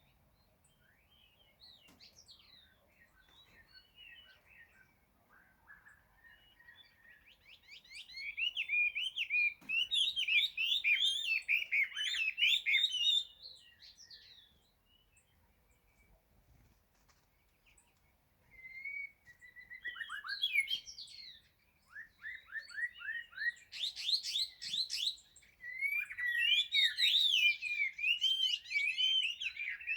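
Small aviary birds chirping in rapid runs. There is a faint start, a dense burst about eight seconds in that lasts some five seconds, then a pause, and more chirping from about nineteen seconds in.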